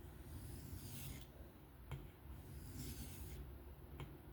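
Steel knife blade stroked lightly across a 1200-grit whetstone, faint scraping strokes about once a second with a couple of soft clicks. These are light deburring passes, fatiguing the burr on an M390 blade.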